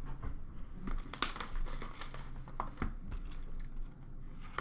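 Hands unwrapping and opening a sealed box of hockey trading cards: crinkling and tearing of the wrapper, with scattered sharp clicks and taps as the box is handled.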